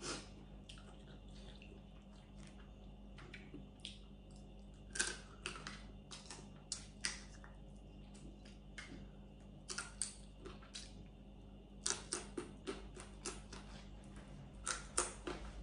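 Close-miked eating sounds: cooked blue crab shell being picked apart by hand and the meat chewed, heard as scattered short crackles and clicks in small clusters.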